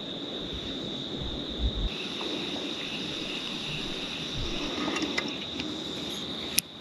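Steady, high-pitched chorus of insects trilling, with a few low rumbles in the first couple of seconds and a sharp click near the end.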